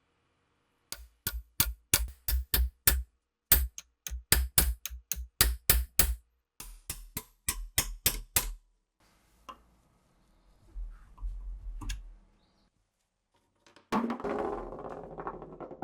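Two quick runs of sharp knocks, about three a second, with a short break between them, then softer scattered handling noises; water starts running from a tap near the end.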